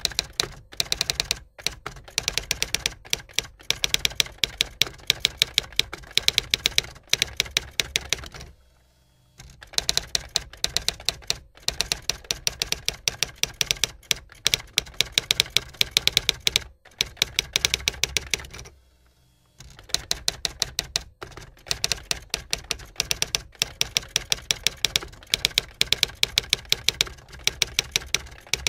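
Typewriter keys clacking in fast, steady runs, broken by short pauses and by two longer stops of about a second, one about a third of the way through and one about two-thirds of the way through.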